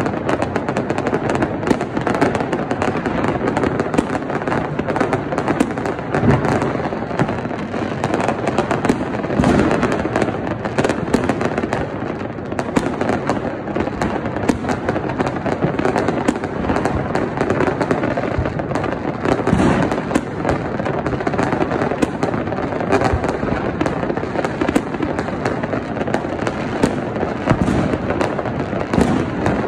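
Many fireworks and firecrackers going off at once across a city: a continuous barrage of overlapping bangs and crackling that never pauses.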